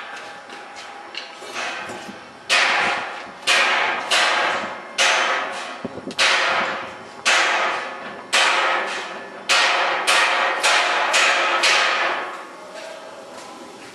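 Steel skimmer worked in a stainless-steel fryer of hot oil: a string of about fifteen sharp clattering hits, each trailing off, coming irregularly and bunching together near the end.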